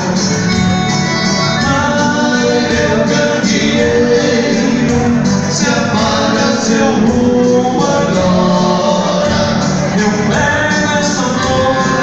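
Gaúcho dance music: a Portuguese-language song with a singing voice over the band, playing steadily throughout.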